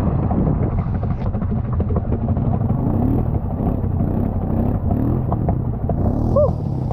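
ATV engine running hard, its revs rising in several quick pulls, with a short high squeak near the end.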